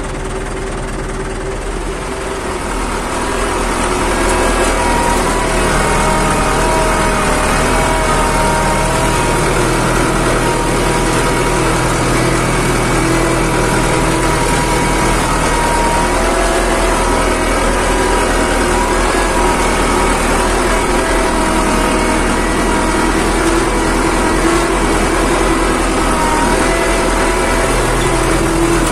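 Fiat 640 tractor's four-cylinder diesel engine running under load as it pulls a mounted plough through the soil, heard from inside the cab. It gets louder a few seconds in, then runs steadily.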